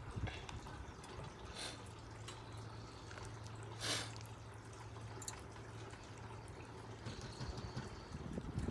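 Faint wet sounds of thick curry being spooned out to serve, with scattered light utensil clicks and one louder short scrape about four seconds in, over a low steady hum.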